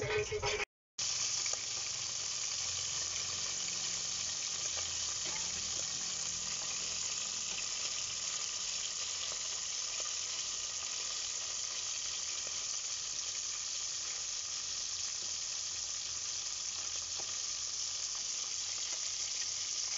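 Whole skinned bullfrogs deep-frying in hot oil in a stainless steel pot, a steady, even sizzle that starts about a second in. The frogs are being fried into crispy fried frog.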